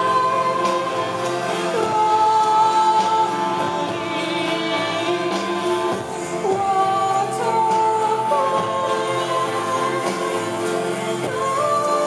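A live rock band playing, with a woman singing long held notes over keyboards.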